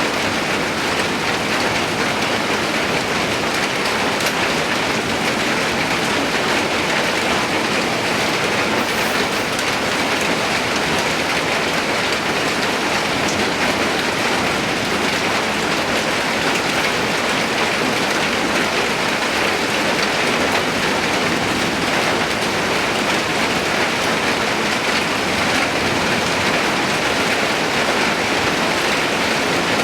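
Steady rain falling, a dense, even hiss of drops that stays at the same strength throughout.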